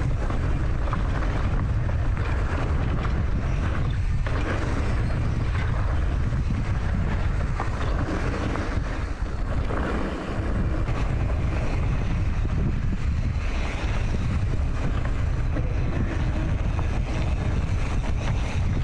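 Enduro motorcycle running as it is ridden along a dirt trail, heavily masked by wind rumbling on the microphone.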